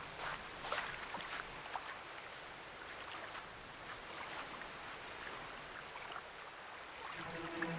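Outdoor riverside ambience: a steady hiss of wind and moving water, with a handful of short clicks in the first second and a half. Near the end a low sustained droning tone comes in.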